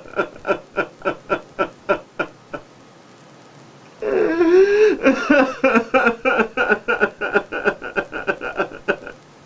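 A man sobbing: rhythmic gasping sobs, about four a second, a short pause, then a long wail falling in pitch about four seconds in, breaking into more rapid sobs.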